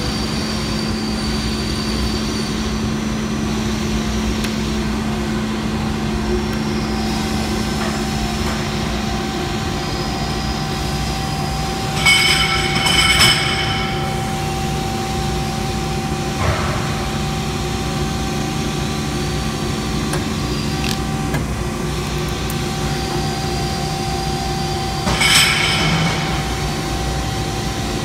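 Steady mechanical running noise of an automatic screw machine cell, with a constant hum, broken twice by about a second of metallic clatter, once about halfway through and again near the end.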